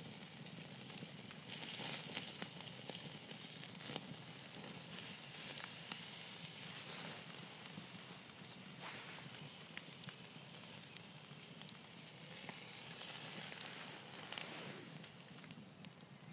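Bacon rashers sizzling on a wire grill grate over a small wood fire, a steady hiss with many small pops and crackles throughout.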